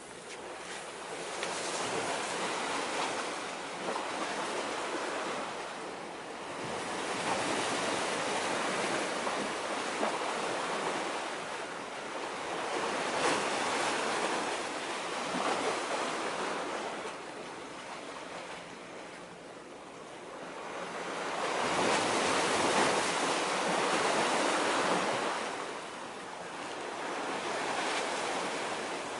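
Small waves washing against concrete breakwater tetrapods, a hiss that swells and fades in slow surges every few seconds.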